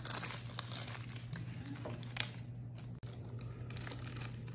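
Crinkling of a small plastic wrapper being handled in the hands, with scattered light clicks.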